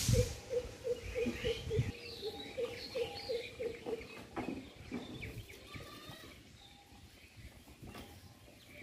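Birds calling outdoors: a rapid run of about ten short notes on one pitch, about four a second, in the first two seconds, with scattered higher chirps throughout; a low rumble accompanies the start.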